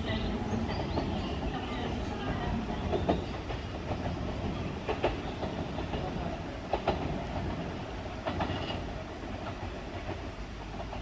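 Nankai 1000-series electric train running along the track, its wheels clicking over rail joints about every two seconds, some clicks in quick pairs. The sound gets quieter toward the end.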